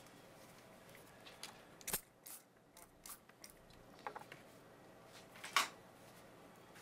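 A trigger spray bottle of glass cleaner spritzing onto a small solar panel in a few short, faint sprays, with light clicks, the loudest about five and a half seconds in.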